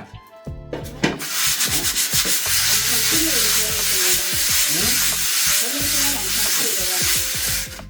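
Abrasive scrubbing on the surface of a cast-iron pot lid, a continuous rough rasping that starts about a second in and stops just before the end. This is stripping the lid before it is seasoned with oil.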